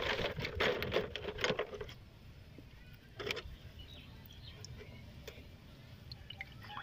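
Hands rummaging among plastic sheeting, rags and parts, a rustling and handling noise for about two seconds, then quieter with one short knock a little after three seconds in and a few light clicks.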